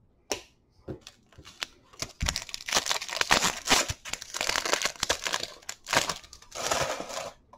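Foil wrapper of a 2019 Bowman Chrome baseball card pack being torn open by hand. A few light clicks come first, then about five seconds of dense crinkling and tearing.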